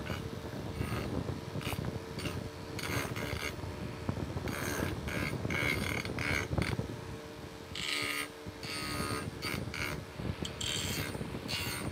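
Electric motor running a spinning disc on a bare spindle, a steady hum and rumble, with short rasping bursts again and again as a carved wooden figure is pressed against the disc to grind and shape it.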